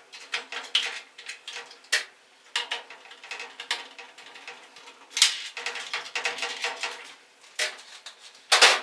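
Irregular metallic clicks and clatter of screws being backed out with a nut driver and a metal plate being handled inside a washing machine's control panel, with a louder clatter near the end.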